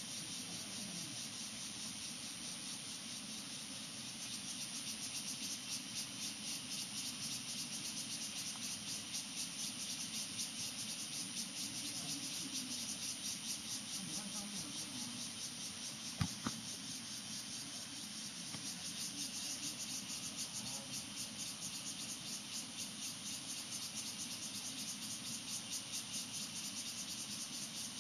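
A steady chorus of insects chirping in a fast, even, shrill trill. Faint distant voices can be heard, and there is one sharp click about 16 seconds in.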